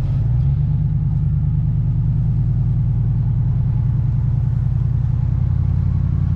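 An engine running steadily at an even pitch, cutting in suddenly.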